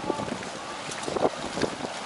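Wind buffeting the microphone over the open-air noise of a harbour quay, with a few short knocks in the second half.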